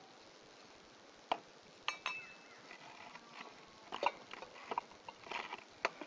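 Scattered metallic clinks and knocks from a small gas-canister camping stove being handled and set up, one clink about two seconds in ringing briefly.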